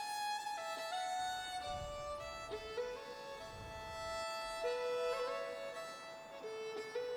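Background music led by a fiddle playing a slow melody of held notes.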